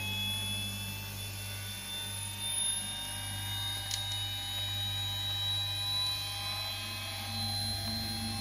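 Gyro rotor of an AGB-3K attitude indicator running on 400 Hz three-phase power, its high whine rising slowly in pitch as it spins up, over a steady low hum. A short click about four seconds in.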